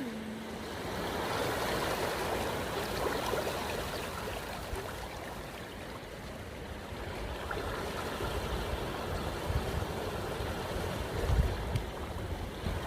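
Sea surf washing onto the shore, a steady rush of waves, with some low rumbling late on.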